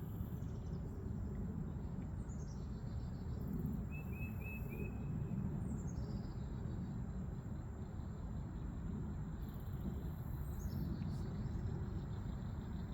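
Songbirds calling: three high runs of notes, each falling in pitch, and one short trill, over a steady low outdoor rumble.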